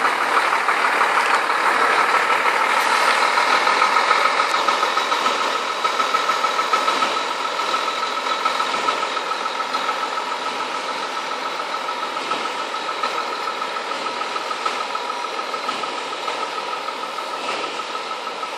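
IVECO 440 PS dump truck's diesel engine idling with a steady, fast clatter, growing gradually fainter.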